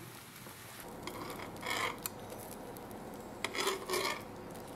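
A metal spatula scraping and sliding across an oiled electric griddle as flatbreads are turned while they bake: a few short scrapes, then a longer run of scraping near the end.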